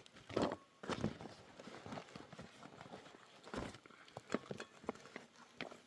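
Scattered light knocks and scuffs at an uneven pace, with faint rustling between them.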